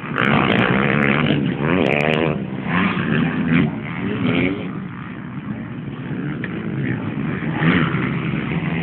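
Motocross dirt bike engines revving on the track, the pitch rising and falling as the riders work the throttle. Loudest in the first couple of seconds, easing off around the middle and building again near the end.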